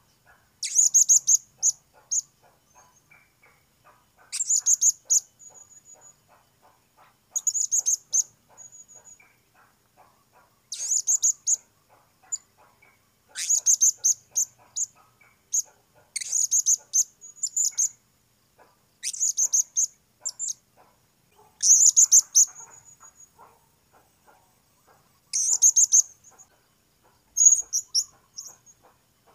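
Blue-crowned hanging parrot calling: about ten short bursts of rapid, shrill, high-pitched notes, roughly one every three seconds.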